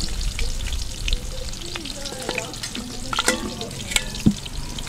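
Food sizzling in hot oil in a frying pan on a wood fire, with a few sharp clicks of a spoon against the pan as it is stirred in the second half.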